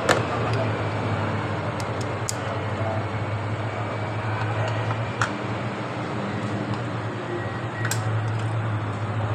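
A few isolated sharp metallic clinks of a hand tool and socket as a spark plug is being removed, over a steady low hum.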